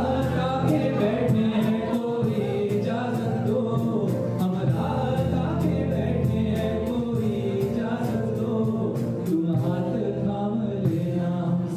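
Two male voices singing a song together through stage microphones, backed by a drum kit keeping a steady beat on the cymbals.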